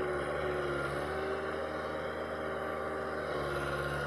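Caterpillar hydraulic excavator's diesel engine running steadily under load as the machine raises its boom and swings a bucketload of soil.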